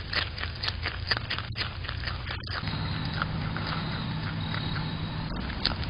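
Groundhog chewing food close to a security camera's microphone: a fast run of short crunching clicks, with a low steady hum coming in about two and a half seconds in.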